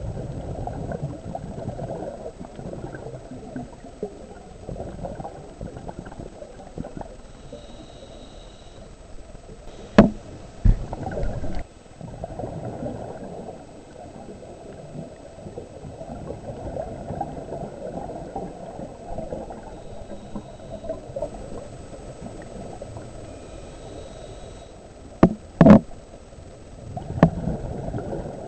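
Muffled underwater rumble and gurgling of a scuba diver's exhaled bubbles and regulator breathing, heard through a waterproof camera housing, swelling and fading with each breath. A few sharp knocks, twice near the middle and several times near the end, are the camera housing being bumped.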